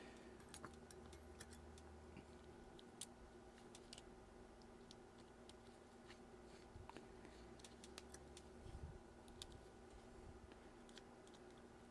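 Near silence with faint, scattered small clicks and ticks from a precision screwdriver driving the screws of metal strap adapters into a resin watch case. One click about three seconds in stands out a little.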